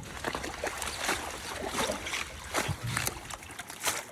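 Irregular splashing and dripping water close by, a series of short splashes.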